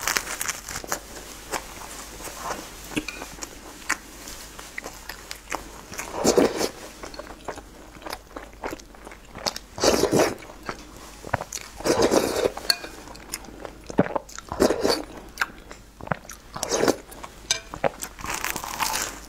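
Close-up eating sounds: wet chewing and biting of a fried dough stick, with about five louder slurps of chilli broth and soft tofu from a spoon.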